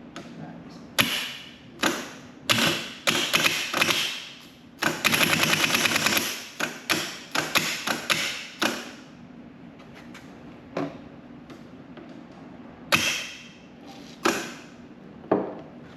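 Starter motor from a Chevy 468 big block being bench-tested by touching jumper leads to it: a series of sharp clacks and short rough spins, with one longer rough run of a second or so about five seconds in. It runs rough and locks up instead of spinning freely, the sign of a bad starter.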